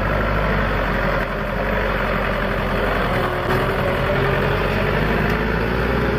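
Tanker truck's engine running steadily as the truck drives slowly.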